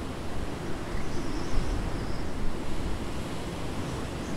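Breeze blowing across open countryside, buffeting the microphone with a gusty low rumble over a steady rush of moving air.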